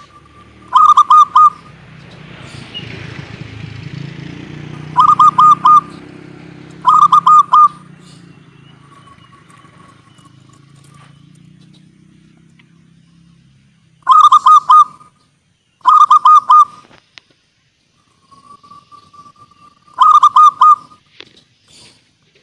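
Zebra dove (perkutut) singing: six loud phrases, each a quick run of about four clipped coos, some opened by a longer drawn-out note, with pauses of a few seconds between them.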